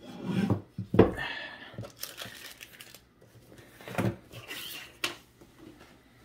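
Hard plastic clicks and knocks as a plastic action-figure horse is pressed onto its plastic display base, the sharpest click about a second in and two more later, with short bursts of plastic packaging crinkling in between.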